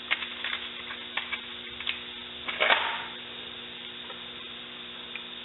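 Scattered light clicks and clinks of metal parts and hand tools being handled, with a louder clatter about two and a half seconds in, over a steady electrical hum.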